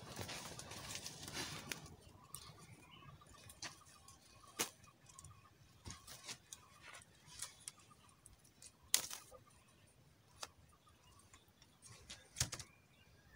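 Dry leaves rustling underfoot, then light scattered clicks and knocks from handling a woven bamboo basket bird trap and its string while it is being reset, with two sharper knocks, one about nine seconds in and one near the end.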